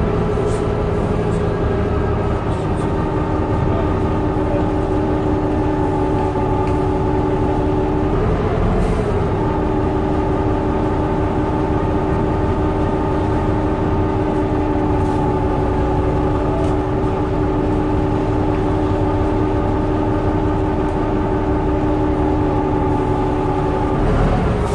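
MCW Metrobus double-decker bus heard from inside the saloon while driving, a steady engine and driveline drone with a held whine. The pitch wavers and resettles once, about eight seconds in.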